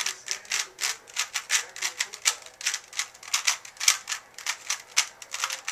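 Alpha 2 3x3 speed cube being turned fast during a speedsolve: a rapid run of plastic clicks and clacks as its layers snap round, about five a second.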